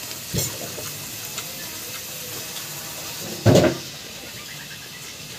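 Eating noises from a man chewing boiled squid: two short, wet mouth sounds, the second about three and a half seconds in and much louder, over a steady hiss.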